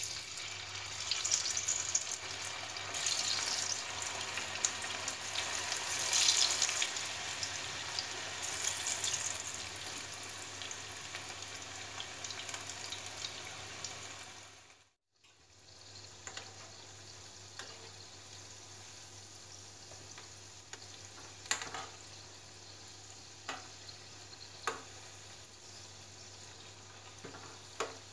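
Battered cauliflower florets deep-frying in hot oil in a metal kadai: a loud, crackling sizzle that drops to a quieter, steady sizzle after a cut about halfway through. A few sharp taps of a spoon against the pan come in the second half as the florets are turned.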